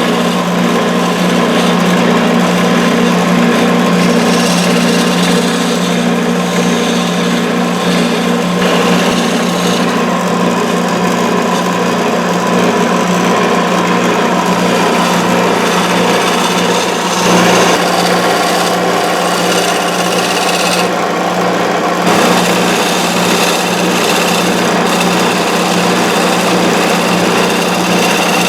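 A power tool running steadily: a loud, even hum with a fast, rhythmic chatter underneath, briefly changing about 17 seconds in.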